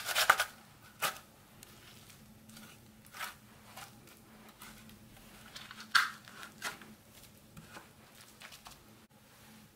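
Raw potato grated on a metal box grater: a few fast rasping strokes at the start, then scattered soft scrapes and taps as grated potato is wiped off the grater and fingers into a dish, with one louder scrape about six seconds in.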